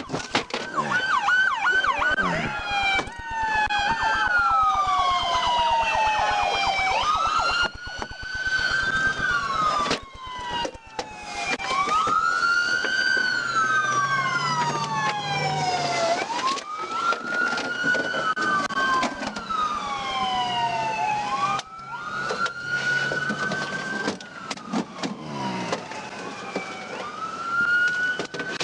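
Police car siren: a few quick yelps at first, then a slow wail that rises quickly and falls away about every four seconds. For a few seconds near the start, a second siren overlaps it.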